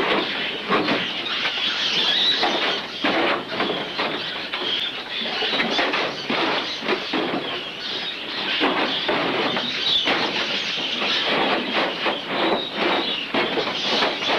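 Farmed mink squealing and chattering amid a continual irregular rattling of wire-mesh cages as the cages are opened.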